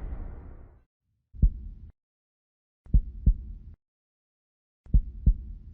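A booming hit dies away in the first second. Then low heartbeat-like thumps follow: a single beat, then two double beats about two seconds apart, with dead silence between them.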